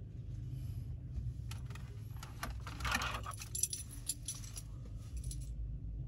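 Light metallic jingling and clicking of small metal objects, starting about a second and a half in and stopping near the end, over the low steady rumble of a car cabin.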